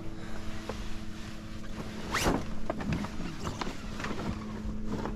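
A long sail batten being drawn out of its pocket in the mainsail, with one loud scraping rasp about two seconds in and light clicks and rustling of the sailcloth around it.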